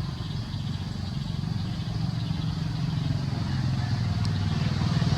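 A motor engine running with a steady low pulsing note, growing gradually louder toward the end.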